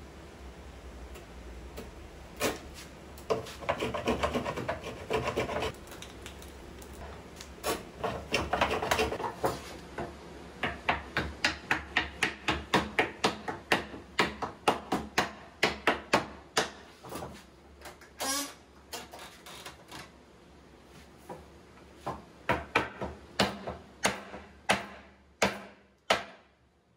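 Hand saw cutting a dovetail in wood: a long run of short strokes, about two a second through the middle. The strokes stop shortly before the end.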